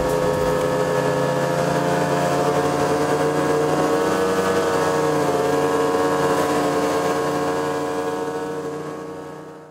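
Snowmobile engines running at a steady, high speed, their pitch dipping slightly about halfway through, then fading out near the end.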